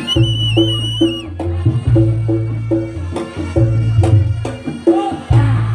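Traditional Javanese Reog/jaranan ensemble music: quick, evenly spaced pitched percussion strokes over long deep bass tones and drumming. A high, wavering held note sounds over it for about the first second.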